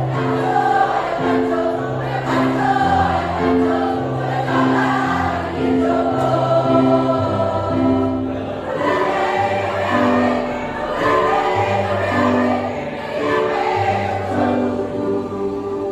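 A choir singing a slow song in several-part harmony, with held chords that move on about once a second.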